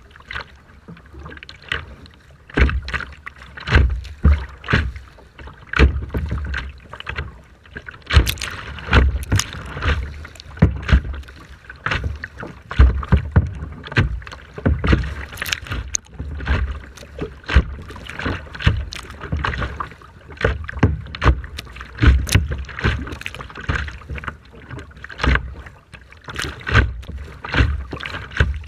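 Rough sea water splashing and slapping in quick, irregular bursts, with strong wind buffeting the microphone in uneven low gusts.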